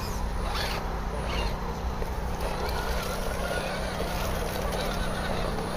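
Electric motor and gear drivetrain of a radio-controlled crawler truck whirring steadily as it climbs a wooden log ramp, with a few knocks in the first second or two.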